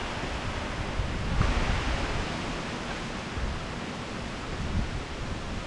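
Storm wind rushing steadily through the trees, with gusts buffeting the microphone in low, uneven rumbles; a gust swells about a second and a half in.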